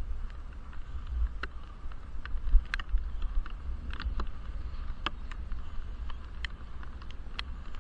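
Low, muffled rumble of wind and riding heard through a helmet camera's sealed waterproof housing as a bicycle rolls along, with irregular sharp ticks scattered over it.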